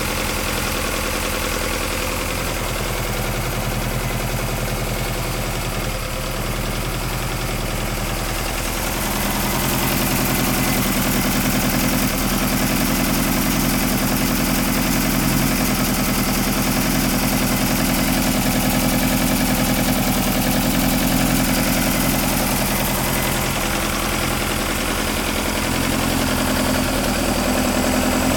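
2.2-litre Ford Pinto SOHC four-cylinder engine on a test stand, breathing through twin 45 mm Dellorto DHLA carburettors, running at idle. It gets louder and brighter for a stretch of about a dozen seconds in the middle, then settles back.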